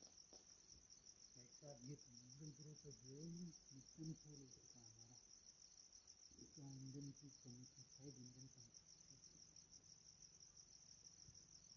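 Crickets chirping faintly in a steady, fast high trill. Faint distant voices talk twice, from about one and a half seconds in and again from about six seconds in.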